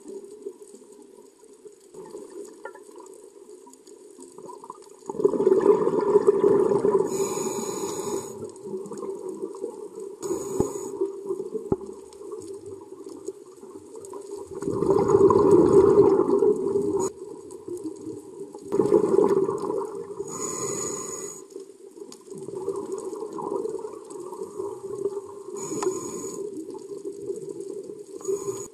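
Scuba diver breathing through a regulator underwater. Long rushes of exhaled bubbles come three times, and short high hisses of the regulator on inhalation come in between, over a steady low underwater rumble.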